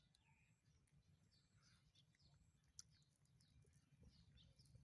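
Near silence with faint birds chirping in the background: a string of short, high, falling chirps. A single faint click comes just before the three-second mark.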